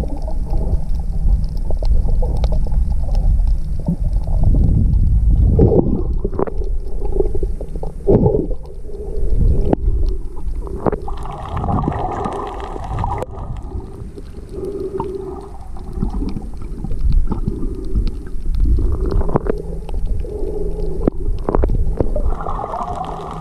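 Underwater sound picked up by a camera in a waterproof housing: a muffled low rumble and gurgling of moving water, with scattered sharp crackles and clicks. It is loudest in the first few seconds.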